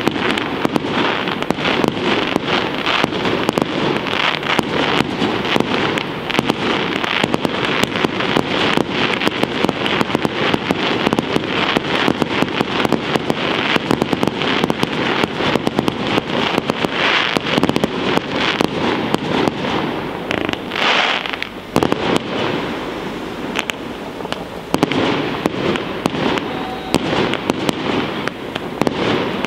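Aerial firework shells bursting in rapid, continuous succession during a professional pyrotechnic display, a dense run of bangs and crackles. The barrage thins out briefly about two-thirds of the way through, then picks up again.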